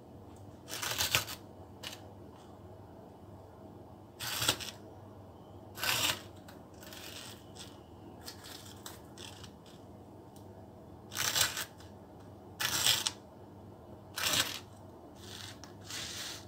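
Kitchen knife cutting through dry ladyfinger biscuits down onto a plastic cutting board: about seven short separate cuts, unevenly spaced a second or more apart.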